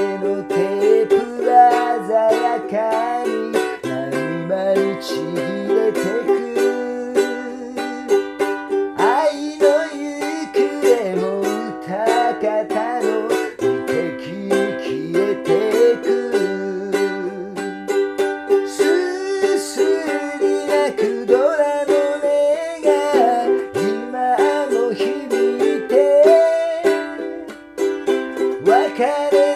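Ukulele being strummed and plucked through a chord progression, playing steadily without a break.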